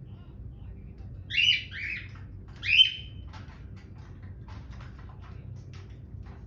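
A pet cockatiel calling: three short, loud chirping squawks in quick succession between about one and three seconds in. A run of faint clicks follows.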